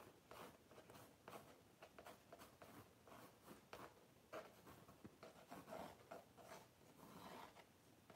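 Faint scratching of a pencil sketching lines onto a primed painting surface, in many short, irregular strokes.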